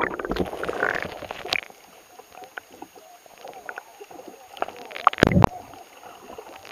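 Muffled underwater sound from a camera held just below the sea surface. Water sloshes against the housing for the first second and a half, then comes a hush with scattered faint clicks and crackles, and a short loud slosh about five seconds in.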